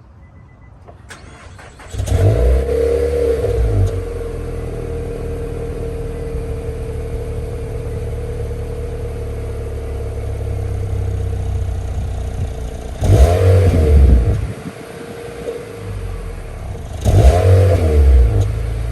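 A 2020 Nissan Altima on its stock exhaust starting up: brief cranking, then the engine catches and flares high before settling into a steady idle. It is revved twice, briefly, before dropping back to idle.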